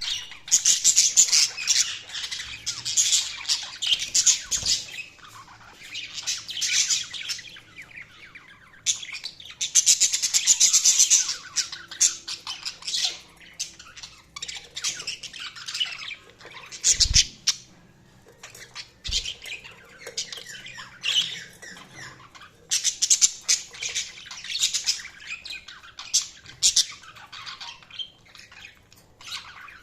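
Budgies chirping and chattering in rapid bursts of high, scratchy calls with brief pauses between them, and a few soft low thumps.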